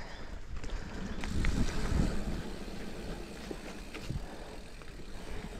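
Giant Trance mountain bike rolling down a steep dirt trail: a steady rumble of tyres over dirt and leaves, with scattered knocks and rattles from the bike. It is louder between about one and two seconds in.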